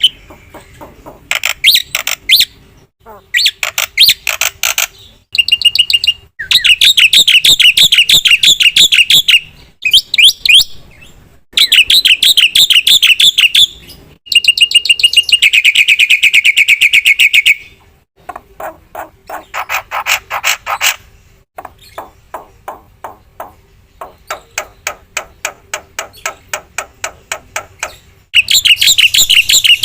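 Black-winged myna (jalak putih) singing loudly in long, varied phrases: runs of rapidly repeated sharp notes and long fast trills, broken by short pauses.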